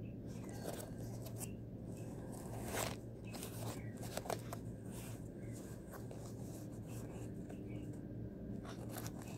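A cardboard-and-paper mailer being handled and pulled open by hand: irregular crinkling, scraping and tearing rustles, loudest about three and four seconds in, over a steady low hum.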